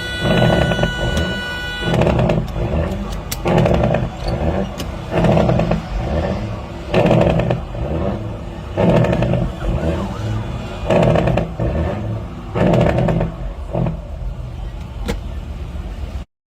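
A vehicle running on a highway, its sound swelling in a loud surge about every two seconds. A steady pitched tone runs over it and ends about two seconds in, and all sound cuts off abruptly near the end.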